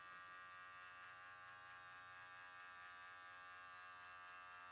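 Electric hair clippers fitted with a number one guard, lever open, running with a faint steady buzz as they cut short hair.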